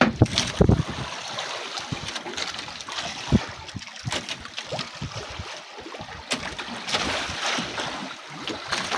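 Sea water lapping and splashing around a small wooden outrigger boat, with a few low bumps and knocks in the first second.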